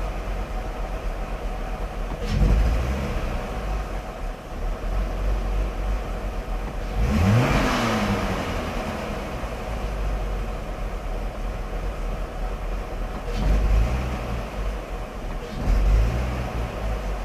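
1999 BMW 540i's 4.4-litre V8 idling roughly, blipped on the throttle: a short rev a couple of seconds in, one bigger rev that rises and falls back midway, then two more short revs near the end. It is being checked for its rough idle.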